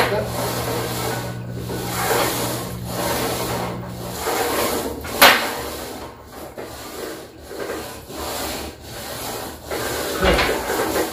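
Smith machine bar carriage sliding up and down its steel guide rods as it is worked by hand, a rubbing scrape in repeated strokes, with a sharp clack about five seconds in. A steady low hum stops about four seconds in.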